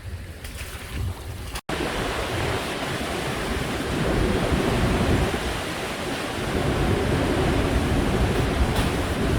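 Typhoon surf and strong wind, with wind buffeting the microphone in a heavy low rumble. The sound cuts out for an instant about one and a half seconds in, then comes back louder and fuller.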